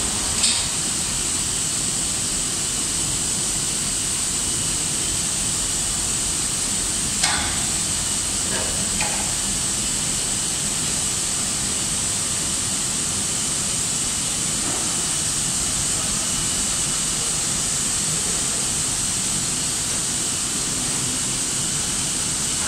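Steady hiss and hum of running cable-factory production-line machinery, with a constant high-pitched hiss over it. A few short knocks sound about seven to nine seconds in.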